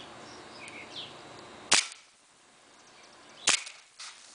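Two shots from a WE full-metal M1911 gas blowback airsoft pistol, sharp cracks about a second and three-quarters apart. A fainter click follows about half a second after the second shot.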